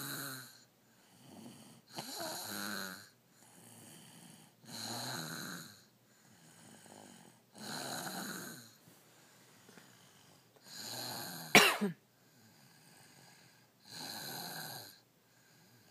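Snoring in a steady rhythm: a loud snore about every three seconds, with a quieter breath between each. A sharp click about three-quarters of the way through is the loudest sound.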